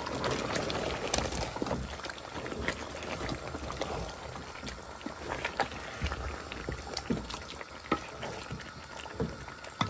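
A wooden spoon stirring chicken pieces and potato chunks through thick tomato masala in a metal pot, with scattered clicks and scrapes of the spoon against the pot over a steady sizzle and bubbling of the masala.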